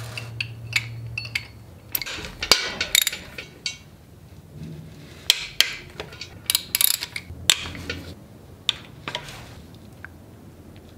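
Ratchet wrench on a long extension and T45 Torx socket loosening the bolts of a Fiat MultiAir valve actuator assembly: short runs of ratchet clicking, with scattered metal clinks and knocks of the tool against the engine head.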